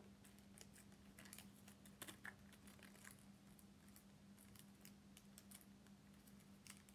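Faint, scattered clicks and taps of small plastic toy packaging, a tiny plastic pot being handled and fiddled with while trying to open it. A steady faint low hum runs underneath.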